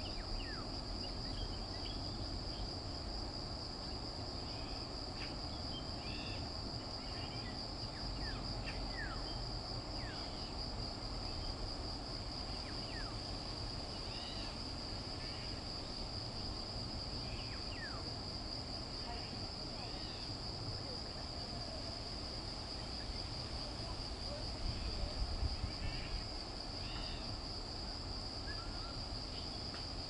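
Steady high-pitched insect chorus, with scattered short chirps above it and a low rumble underneath.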